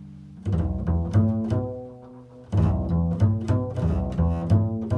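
Improvised low-pitched music on a plucked string instrument: two runs of quick, separately plucked notes that each ring and fade, with a short gap between the runs about halfway through.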